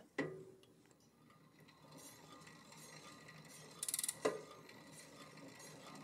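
Rear wheel of an e-bike with a hub motor spinning after being turned by hand: faint ticking from the hub and the disc brake rotor, which is just barely rubbing the brake pad. A short burst of quick clicking comes about four seconds in, then a single click.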